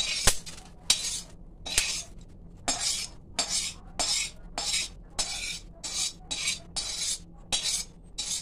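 Metal slotted spoon scraping around the inside of a kadhai in quick repeated strokes, about two a second, scooping out fried melon seeds.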